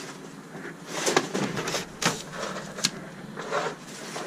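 A string of irregular scrapes and sharp knocks, about six or seven of them, uneven in spacing and loudness, like debris being stepped on or handled.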